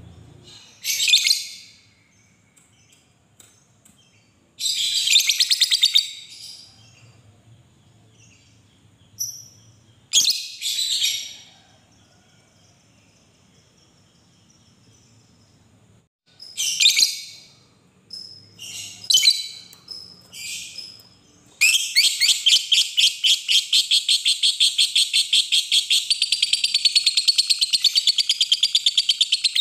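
Fischer's lovebird calling: a few short shrill calls with pauses between them. About two-thirds of the way in it breaks into a long, unbroken, rapid chattering trill (the 'ngekek panjang' prized in lovebirds).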